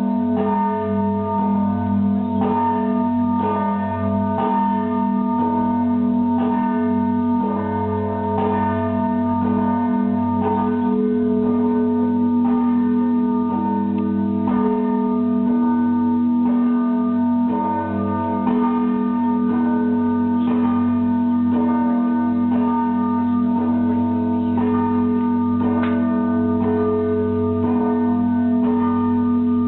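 Russian Orthodox monastery bells rung together: quick, rhythmic strikes of the smaller bells over the sustained hum of the large bells.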